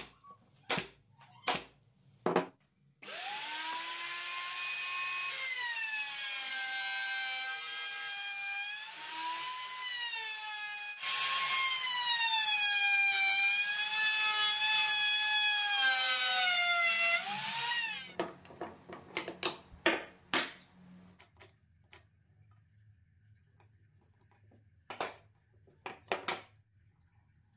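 A nail gun fires four times into plywood. Then a table-mounted power tool runs for about fifteen seconds, its whine dipping and wavering in pitch as wood is fed into it, and louder for the second half. Scattered knocks of wooden pieces being handled follow.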